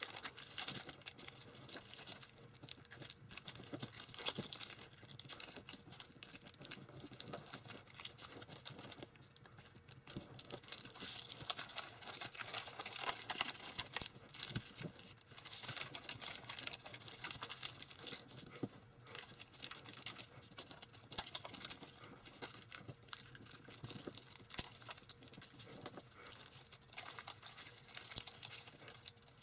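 A sheet of tissue foil (tissue paper bonded to kitchen foil) crinkling and rustling faintly as it is folded and creased by hand, in an irregular stream of small crackles with brief lulls.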